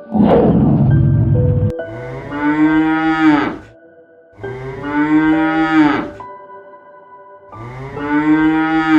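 Cow mooing: three long, drawn-out moos, each rising and falling slightly in pitch. They follow a loud breathy rush in the first second and a half, with soft background music underneath.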